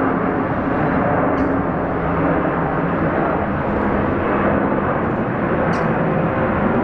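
Steady, even roar of distant engine noise with a faint low hum, with no rise or fall in level. Two brief, faint high chirps, about a second in and near the end.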